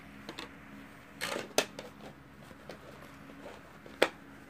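Light handling noises: scattered sharp clicks and rustling, the loudest about a second and a half in and again near the end, over a faint steady hum.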